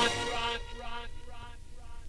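The end of a pop track: the full band stops and a few repeated pitched notes ring on and fade away over a low rumble.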